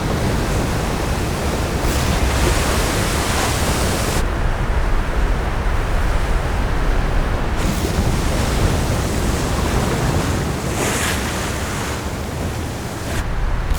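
Storm-sea sound effect: heavy waves and wind in a continuous loud rushing wash, the hiss surging and easing, with a short brighter surge of spray near the end.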